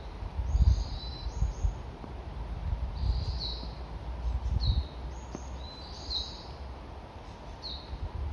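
A songbird calling repeatedly, short high phrases every second or two, over irregular low rumbling bumps.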